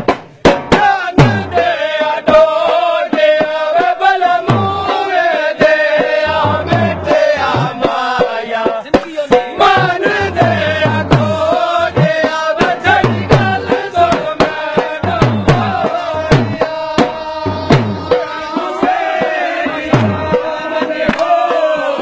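Punjabi folk song: a voice singing a wavering melody over repeated drum strokes in a steady rhythm, with sharp percussive clicks.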